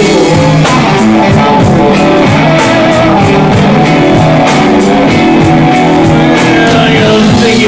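Live rock band playing an instrumental passage without vocals: electric guitar, keyboard, bass and drum kit, with a steady drum beat.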